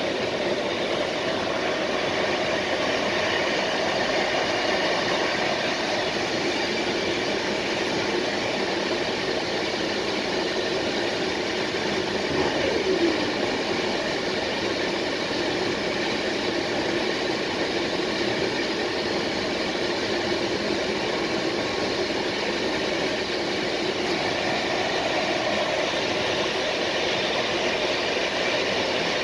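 An electric-hauled intercity passenger train running steadily at speed, heard from the rear of the train: an even rolling rumble of wheels on rails. About halfway through a brief falling tone rises above it.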